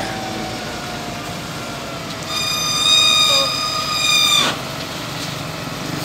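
Wheel loader's diesel engine running steadily while the bucket tips its load into a dump truck. About two seconds in, a loud high squeal holds one pitch for about two seconds and ends abruptly with a knock.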